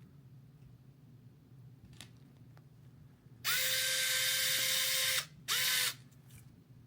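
Drill driving a small beadlock-ring screw into a micro crawler wheel: a steady, even-pitched whine for under two seconds, a brief stop, then one short second burst. Faint clicks of handling the small parts come before it.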